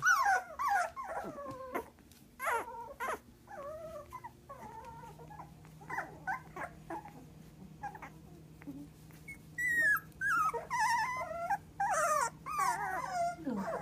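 Three-week-old Goldendoodle puppies whimpering and squeaking in short, wavering cries, several overlapping, busiest near the end.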